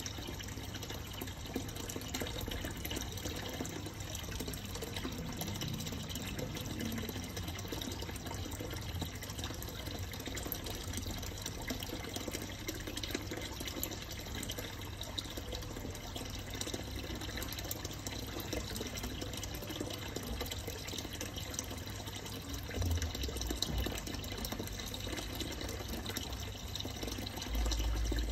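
Steady trickle of running water, as from a fish-pond or aquarium water flow, with a low rumble that comes in briefly about 23 seconds in and again near the end.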